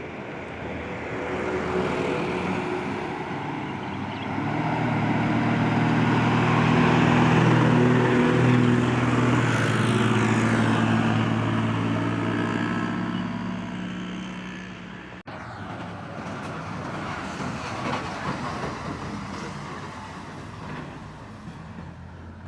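A heavy truck's engine runs as it passes close by, growing louder over the first several seconds, loudest about a third of the way in, then fading away. After an abrupt break about two-thirds through, quieter traffic noise continues.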